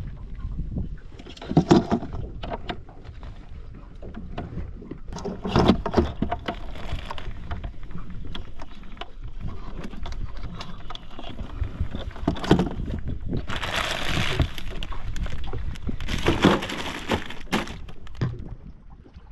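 Knocks and scraping as tied mud crabs are handled and set into a hard plastic cooler box, with four louder knocks spread through and two stretches of rustling in the second half.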